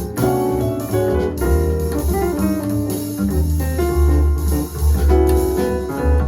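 Jazz piano trio music played back through Klipsch R-40PM powered speakers: piano melody over a deep walking double bass, with light cymbal shimmer from the drums.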